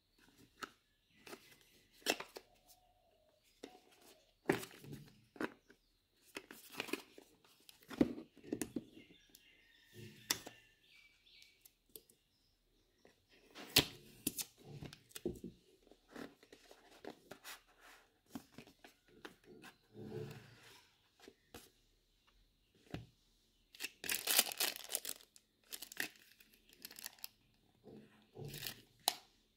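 Cardboard box and plastic packaging of a pair of wireless earbuds being handled and opened by hand: scattered taps, clicks, scrapes and rustles, with a louder tearing, crinkling stretch about three-quarters of the way through.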